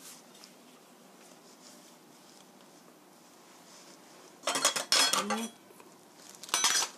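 Kitchen dishes and utensils clattering on a tabletop in two short bursts, one about four and a half seconds in and one just before the end, after a few seconds of quiet room tone.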